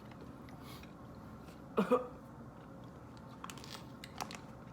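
Quiet chewing of a snack, with a brief vocal sound about two seconds in and a few faint clicks later.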